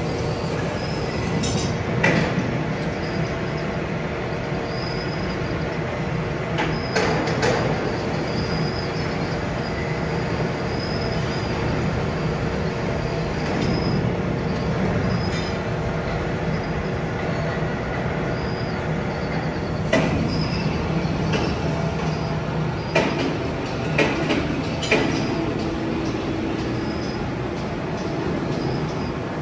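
Metalworking factory machinery running with a steady hum and rumble, broken by occasional metallic knocks and clanks, several of them close together near the end.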